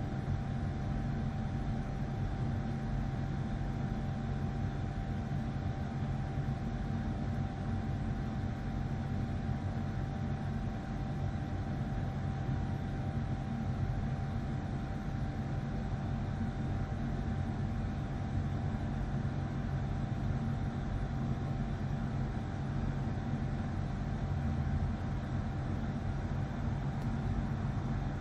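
A steady mechanical hum with a low drone and a faint held tone above it, unchanging throughout.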